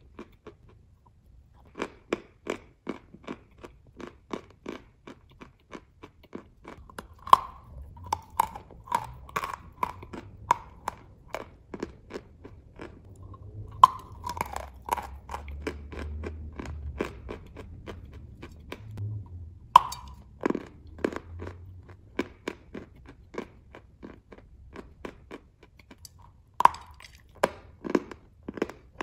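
Close-miked biting and chewing of white chalk lumps: a rapid run of dry, crisp crunches, with four louder bites spaced about six seconds apart.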